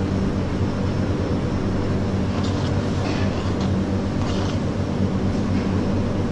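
Steady low mechanical rumble with a constant hum underneath.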